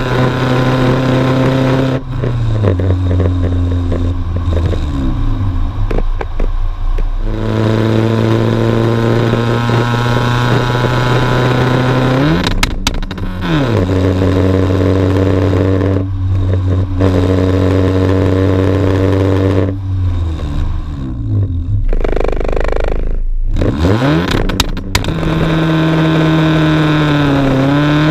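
Exhaust note of a decatted Honda Civic EJ9's 1.4-litre D14 four-cylinder engine under way, with long stretches at steady revs. Several times the revs drop away and then climb again.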